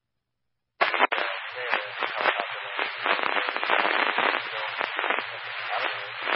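Scanner radio transmission opening about a second in and cutting off abruptly near the end: harsh, crackling static with no clear words, a garbled, broken-up transmission.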